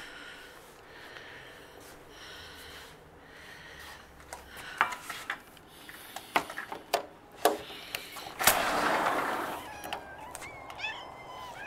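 A run of sharp knocks and clicks, then a louder rushing noise lasting about a second and a half, followed near the end by several cats meowing with wavering, rising calls.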